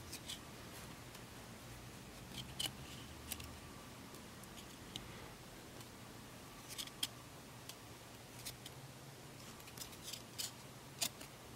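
Card-stock trading cards being flipped through by hand, each one slid off the front of the stack: about a dozen soft, irregularly spaced flicks and slides over a faint low hum.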